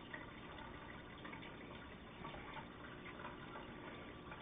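Quiet room tone: a faint, steady hiss with no distinct sound standing out.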